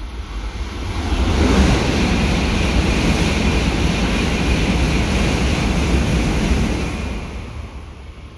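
Tokaido Shinkansen bullet train passing at speed without stopping: a rushing roar of air and wheels that swells about a second in, holds loud for about five seconds, and fades near the end.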